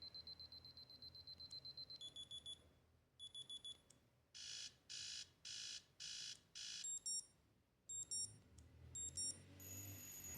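LG GW620g (Eve) phone's built-in electronic alert tones played through its speaker, one pattern after another: about two seconds of rapid high beeps at roughly ten a second, two short beeps, five fuller beeps, some quick chirps, and a steady high tone near the end.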